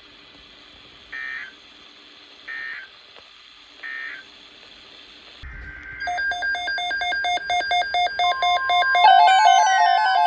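Three short digital data bursts about a second and a half apart, the end-of-message code of an Emergency Alert System weather-radio broadcast, over faint radio hum and hiss. From about six seconds in, a louder electronic tone pattern begins: several pitches pulsing rapidly together, joined near the end by a steady tone and falling glides.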